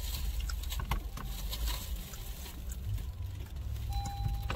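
Steady low rumble inside a car cabin, with scattered light ticks. About four seconds in a steady high-pitched tone comes on, and a sharp click follows right at the end.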